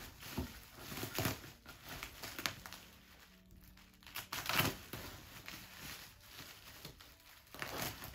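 Plastic bubble wrap crinkling and rustling in short, irregular bouts as it is handled and cut free with scissors, loudest about four and a half seconds in.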